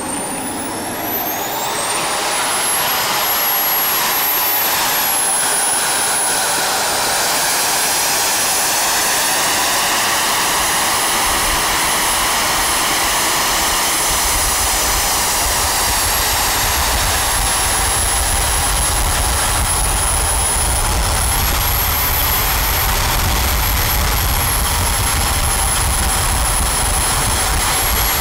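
Small KingTech turbojet engine on a jet-powered go-kart spooling up. Its high whine rises over the first couple of seconds, then holds nearly steady over a loud rush of exhaust during a run at about half throttle. A low rumble joins about halfway through.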